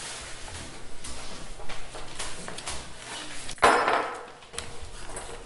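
A sheet of paper being unfolded: a short crisp rustle about three and a half seconds in, amid light knocks and shuffling.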